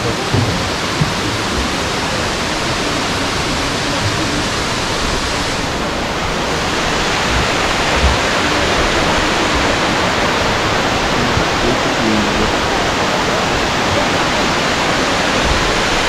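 Steady rushing of a tall, roughly 120-metre waterfall pouring into its pool, growing a little louder about seven seconds in.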